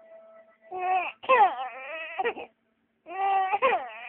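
Three-month-old baby crying in wails, with short breaks for breath between them. A new wail starts just under a second in and stops about halfway through, and another begins after a brief gap.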